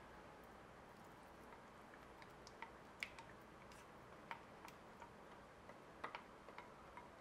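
Faint, irregular light clicks and taps, about a dozen, over quiet room tone; the sharpest comes about three seconds in, with a small cluster around six seconds.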